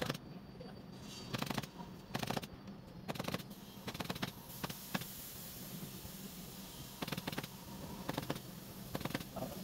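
Pneumatic upholstery staple gun firing in quick runs of shots, about eight short volleys with pauses between, fixing fabric to a sofa frame.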